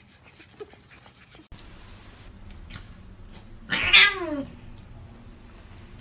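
A domestic cat's single loud, drawn-out meow about four seconds in, falling in pitch as it ends.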